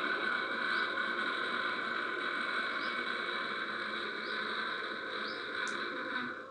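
Ujjayi pranayama breath: a long, steady, snore-like inhale through a narrowed throat with the tongue pressed to the palate, cutting off suddenly near the end as the breath is held. Faint bird chirps about once a second.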